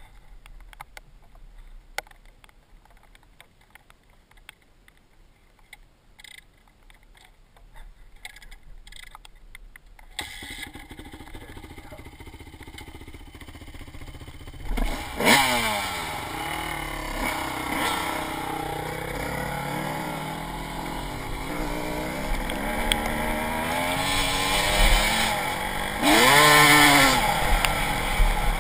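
Faint clicks and handling noise, then about ten seconds in a dirt bike engine starts running. A few seconds later it is revved sharply, and then it is ridden off, its pitch rising and falling, with a loud high rev near the end.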